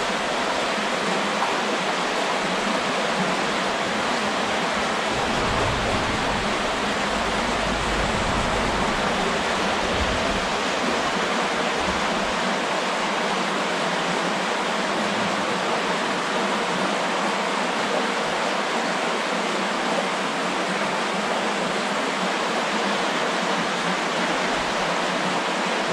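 Creek water running past, a steady rush.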